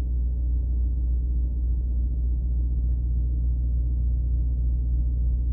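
A steady low hum with no other sound.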